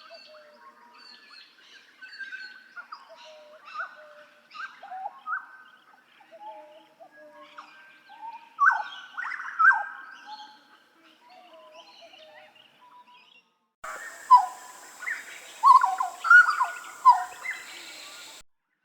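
Hooded butcherbird (Jagal Papua) singing a run of clear, fluting whistled notes, several sliding downward, with the loudest phrases in the middle. About 14 s in, a hissier recording of the same kind of song takes over and cuts off shortly before the end.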